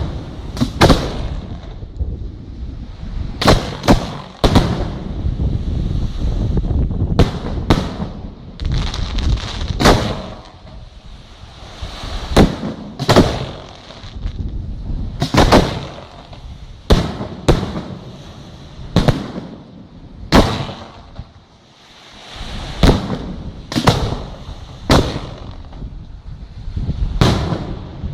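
Large aerial firework shells bursting, one loud bang every one to three seconds with a rumbling echo after each, over a continuous low rumble and crackle. The display holds big 6 to 8 inch shells.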